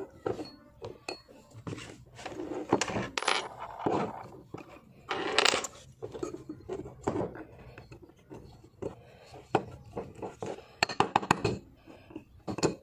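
Small metal clinks and taps from a steel pin punch and a short steel rod working on a Zigana pistol's slide, with a scrape about midway and a quick run of sharp taps near the end. The pin is being knocked out so that the rust-stuck firing pin can be removed.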